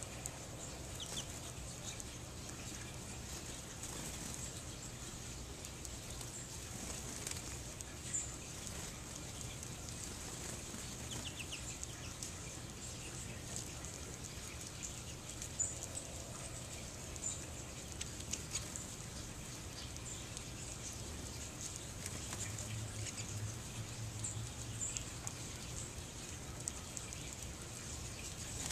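Small finches, American goldfinches and pine siskins, giving short high chirps now and then while feeding, with light wing flutters as birds come and go at the feeder.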